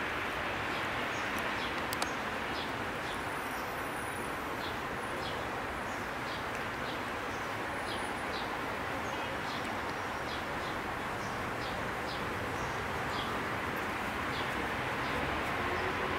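Steady outdoor background noise, with faint short ticks about twice a second and a single click about two seconds in.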